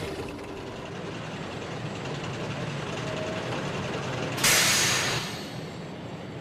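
Low steady rumble of railway engines, with one short, loud hiss from a locomotive about four seconds in.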